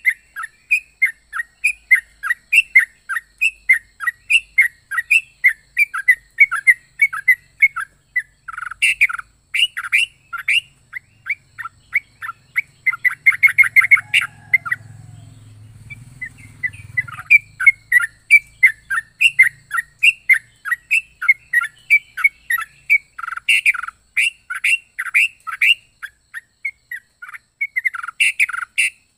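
Yellow-vented bulbul (trucukan) giving a long, loud series of short chirps, about three a second. A fast trill comes about halfway through, then a brief pause, then the chirping resumes.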